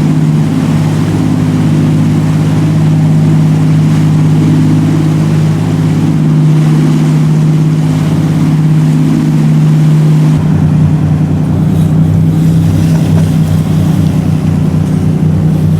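Motorboat engine running steadily under way, a loud, even drone whose note shifts slightly about two-thirds of the way through.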